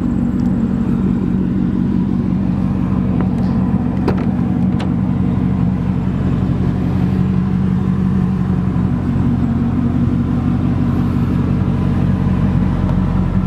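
Supercharged 5.4-litre V8 of a 2003 Ford SVT Lightning idling steadily through its cat-back exhaust, with a few light clicks around four seconds in.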